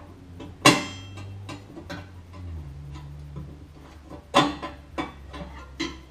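Sharp plastic clicks and snaps as the bulb holder is worked loose inside an opened microwave: one loud snap about half a second in, then a few more clicks near the end, with small ticks between.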